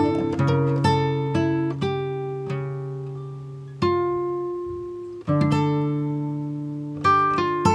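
Background music on a plucked string instrument: single notes and chords plucked and left to ring and fade, with a brief gap about five seconds in before the next notes.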